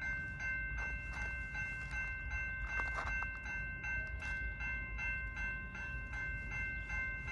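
Railroad crossing warning bell ringing in a steady, rapid series of strikes with a lingering ring between them, as the crossing signals activate and the gate arm starts to come down near the end. A low rumble runs underneath.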